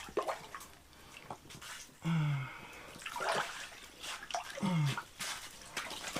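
Water splashing and sloshing in an ice-fishing hole as a lake trout is hand-landed through it, in irregular splashes, with two short low grunts from the angler about two and four and a half seconds in.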